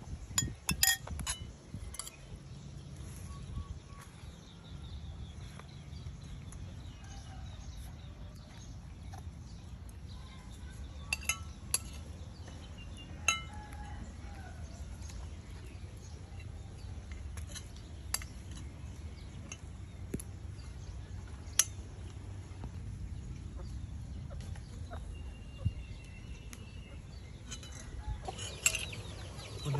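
Metal spoons clinking and scraping on ceramic plates in scattered taps as rice and grilled fish are eaten, over a low steady rumble. A chicken clucks now and then.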